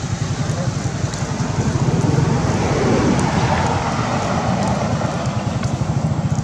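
Wind buffeting the microphone outdoors: a steady, fluttering low rumble under a broad rushing hiss that swells a little around the middle.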